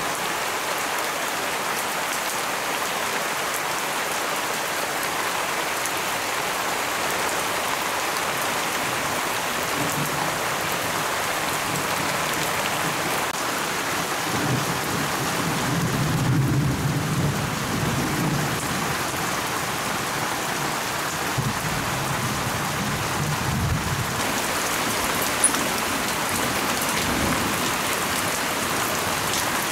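Steady rain falling on leaves and surfaces, with a long low rumble of thunder around the middle.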